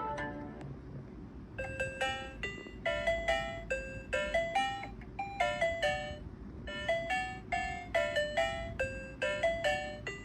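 Australian magpie calling: a long run of short, clear notes, mostly in quick pairs that step up and down in pitch.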